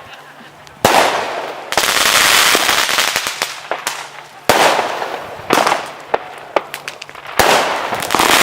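Fireworks going off in a display: four sharp bangs a few seconds apart, each followed by a long fading crackling hiss, with smaller pops between.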